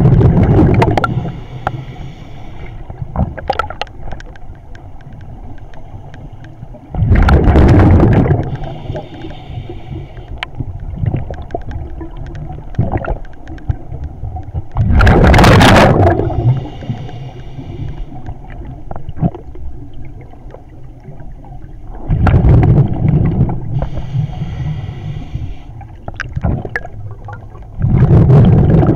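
A scuba diver's exhaled air bubbling out around the camera in five loud bursts about seven seconds apart, one per breath, with a softer hiss between them. This is the pattern of open-circuit breathing, consistent with the diver having bailed out from the rebreather to an open-circuit regulator.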